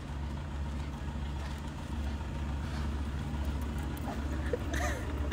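A steady low rumble, with a brief faint call near the end.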